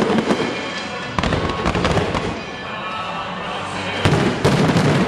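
Aerial fireworks shells bursting: sharp bangs at the start and about a second in, crackling between them, then a louder cluster of bursts about four seconds in.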